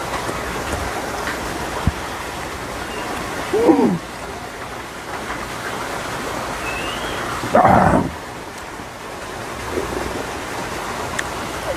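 Steady rain falling, a continuous hiss. Twice, about four and eight seconds in, a person eating makes a short hummed vocal sound.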